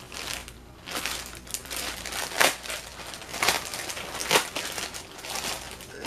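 Clear plastic bag crinkling as it is handled and pulled at, a run of irregular rustles with a few sharper crinkles.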